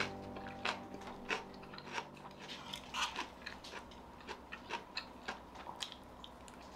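Eating sounds: a metal spoon clinking and scraping against a stainless-steel bowl while scooping fried rice, with chewing, heard as irregular light clicks and crunches several times a second.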